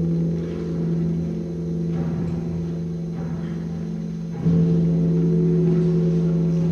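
Symphonic wind band holding a low sustained note over a rumbling percussion roll. About four and a half seconds in, the band comes in louder on a held chord.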